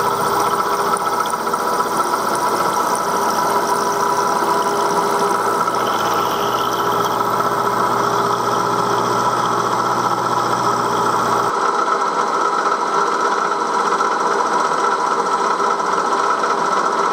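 1938 Bridgeport M-head vertical milling machine running, its end mill taking a profiling cut around a pocket in a metal cylinder block: a steady whine over a constant hum. About two-thirds of the way through, the deeper hum drops out suddenly.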